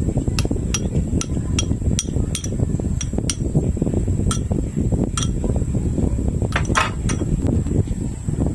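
A series of light, sharp taps, about two to three a second for the first three seconds, then fewer and further apart, over a steady low rumble.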